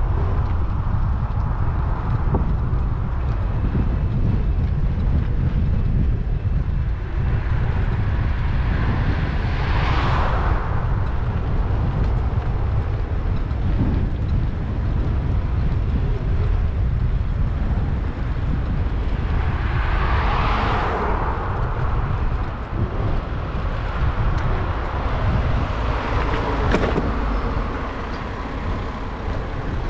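Heavy wind buffeting on the microphone of a moving bicycle, with road vehicles passing on the road alongside three times, each swelling and fading away.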